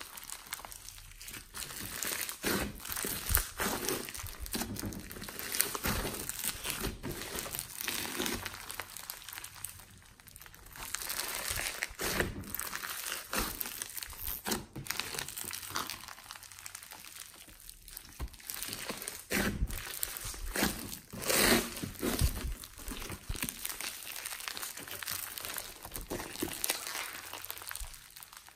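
Hands kneading, squeezing and stretching glossy slime packed with foam beads: a dense, irregular run of crackles and pops.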